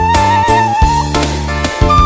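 Sundanese pop song in an instrumental passage: a single lead melody line with vibrato over a bass line and a steady drum beat.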